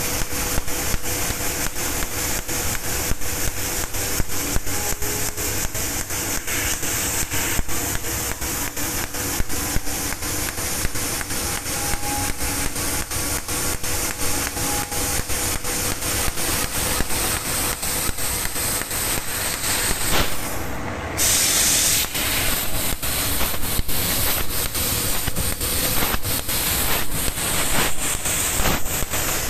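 Fiber laser cutting machine cutting sheet steel: a steady hiss broken by rapid, regular clicks, with a faint steady hum underneath. The hiss cuts out briefly about twenty seconds in, then returns.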